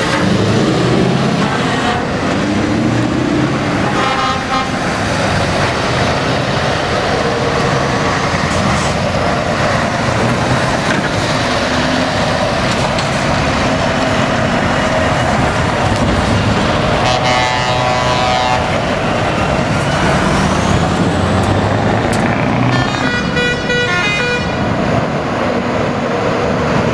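Heavy diesel trucks driving out one after another, engines running as they pull past. Horns sound over them: a short blast about four seconds in, a longer one about two-thirds through, and another near the end.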